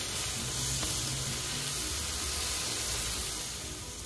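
T-bone steaks sizzling in a hot cast-iron grill pan in vegetable oil, a steady frying hiss that eases a little near the end.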